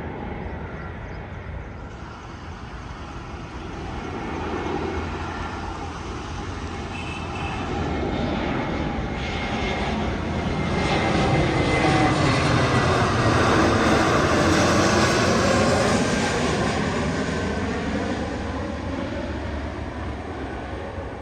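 Airliner on landing approach passing low overhead, its engine noise swelling to its loudest a little past the middle and then falling in pitch as it moves away.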